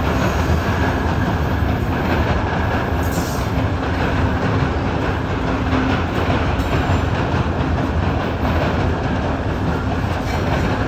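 Double-stack container cars of a freight train rolling past close by: a loud, steady rumble of steel wheels on rail.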